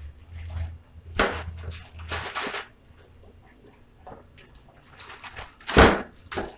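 Plastic bag rustling and crinkling in bursts as chicken wings are shaken and handled in a seasoned flour coating, with small clicks of handling. A loud thump near the end as a coated wing is put down on the metal baking sheet.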